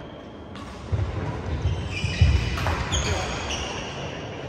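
Court shoes squeaking on a wooden sports-hall floor as badminton players move, several short high squeaks between about two and three and a half seconds in, over low thuds of footfalls.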